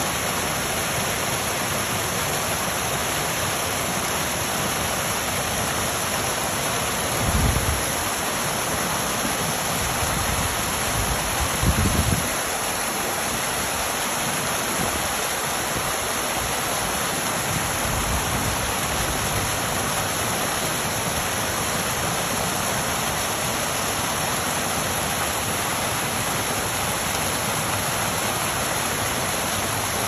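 Steady rush of water splashing down a small tiered rock waterfall into a shallow pool. Twice in the first half, a few seconds apart, there is a brief low rumble, the second the louder.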